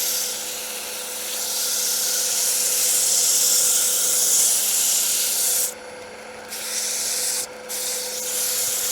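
150-grit sandpaper held against cherry wood spinning on a lathe at about 600 rpm: a steady rasping hiss of sanding over a constant low hum. The paper lifts off briefly about six seconds in and again a moment later.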